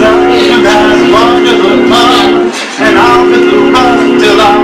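Male barbershop quartet singing a cappella in close harmony, the lower voices holding a steady chord while a higher voice moves above it. The chord breaks off briefly about two and a half seconds in, then comes back.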